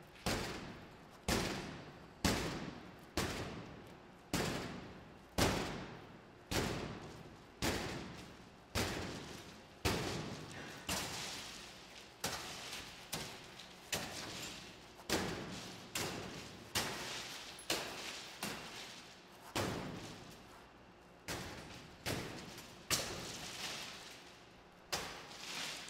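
A heavy metal bar battering a glass door pane over and over, about one blow a second, each hit landing with a sharp crack that dies away quickly. The pane is already shattered but held together by security window film, so the blows crash into crazed glass that stays in the frame instead of falling out.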